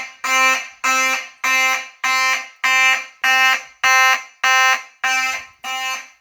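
Fire alarm horn sounding a repeating pattern of short, steady-pitched blasts, a little under two per second.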